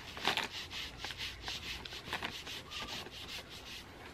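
Wet baby wipe scrubbed back and forth over skin, trying to rub off dirt stains that won't come off, in short repeated strokes about three a second.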